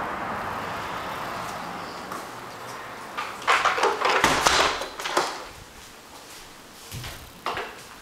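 A sliding balcony door rolling along its track and shutting, a loud rough rumble of about two seconds, followed by two short knocks near the end. Steady outdoor city hum fades underneath in the first few seconds.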